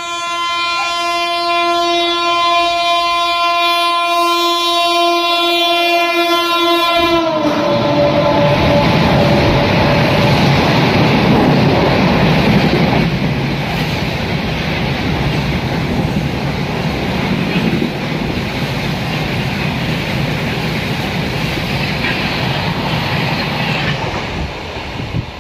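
An Indian Railways locomotive horn held for about seven seconds, dropping slightly in pitch as it ends. Then the loud, steady rushing noise of the train passing at speed, fading a little near the end.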